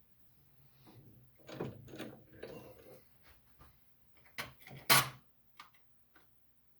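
Metal clatter and clicks as a drill bit is swapped for a small pilot drill in a drill press chuck. There is a stretch of rattling handling about a second and a half in, then a few sharp clacks, the loudest about five seconds in.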